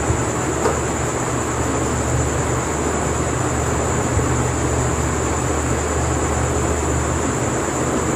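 Avil (flattened rice) cutlets shallow-frying in oil in a pan, a steady sizzle with a low hum underneath.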